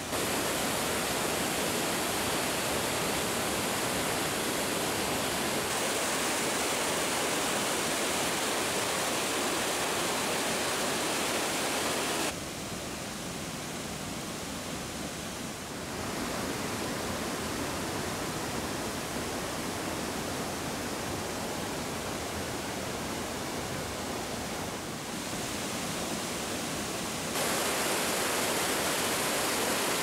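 Waterfall and rapids: water rushing and splashing steadily over boulders into a pool. The level drops abruptly about twelve seconds in and rises again a few seconds later and once more near the end.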